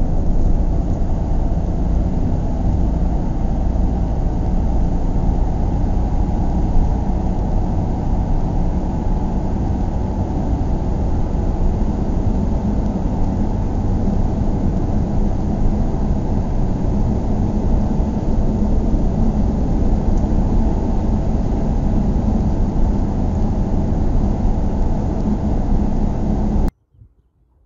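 Steady low rumble of a moving vehicle's engine and road noise, cutting off abruptly near the end.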